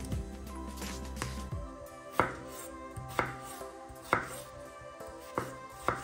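Kitchen knife chopping food on a cutting board, sharp single cuts about once a second, over soft background music.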